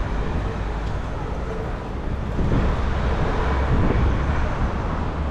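Wind rumbling on the microphone of a moving bicycle's camera, with road and city traffic noise, getting a little louder about halfway through.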